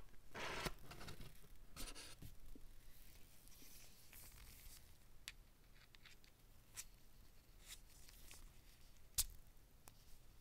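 Faint handling sounds: a watch band scraping and rustling as it is pulled out of its card insert, then a few small clicks, the sharpest about nine seconds in, as the band is slid into the Apple Watch's band slot.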